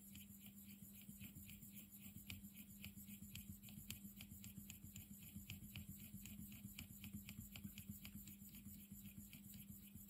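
Paintbrush handle stirring enamel paint in a small metal Humbrol paint tin: faint, quick, even scraping and clicking of the handle against the tin's metal sides, about four strokes a second.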